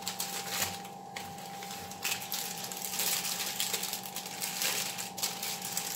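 Irregular crackling and rustling of a refrigerated pie crust's wrapper as the rolled dough is handled and unwrapped, with a faint steady hum underneath.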